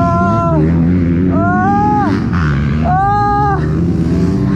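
KTM SXF 250 four-stroke single-cylinder motocross engine running and revving up and down on the track, heard onboard. Three short rising-and-falling whines sit above it.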